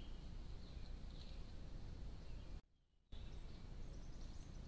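Steady low rumble and hiss of outdoor ambience picked up by a Bushnell trail camera, with a few faint, short bird chirps. It drops out for about half a second a little past halfway, where one camera clip ends and the next begins.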